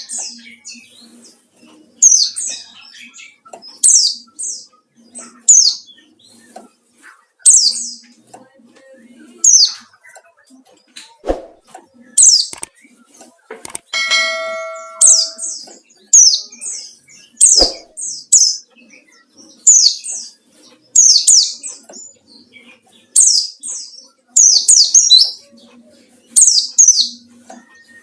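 White-eye (pleci) calling in wild 'ngalas' style, a challenge call seeking a rival: short, high, falling chirps every second or two, often in quick pairs. About halfway through there is a brief ringing tone, and two sharp clicks come before and after it.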